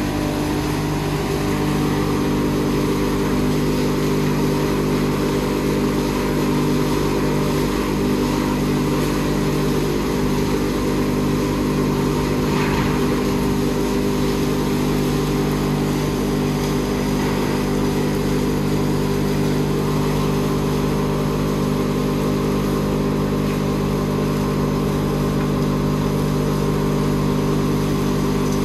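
Large wood hammer mill crusher running steadily: a constant hum of several steady tones under an even rushing noise.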